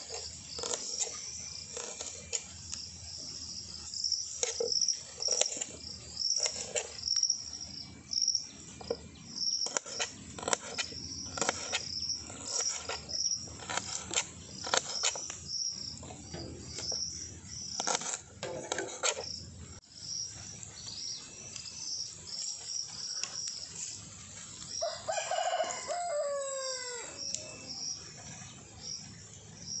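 A rooster crows once, near the end. Through the rest there is a steady run of short, high-pitched chirps, roughly two a second, with scattered sharp clicks and taps.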